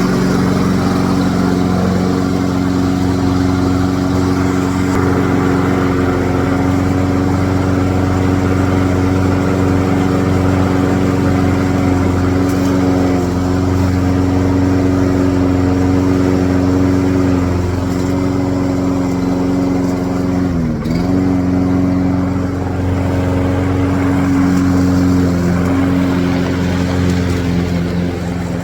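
Brand new Toro Recycler walk-behind lawnmower's gas engine running steadily. Its speed sags briefly a couple of times and dips sharply once, about two-thirds of the way through, before picking back up.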